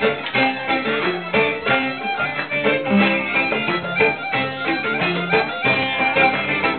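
Traditional Greek dance music: a violin plays a melody of quick notes over plucked-string accompaniment.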